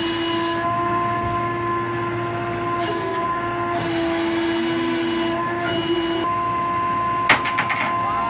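Steady machinery whine made of several held tones, its lowest tone cutting out and back in a few times. About seven seconds in comes a sharp bang, followed by a few lighter knocks.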